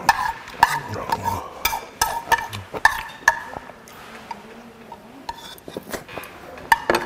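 Metal spoon clinking and scraping against a ceramic bowl, scooping out the last of the porridge: a quick, irregular run of sharp clicks, some ringing briefly.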